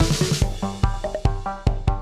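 Background music: an electronic track with a steady drum beat and pitched synth notes.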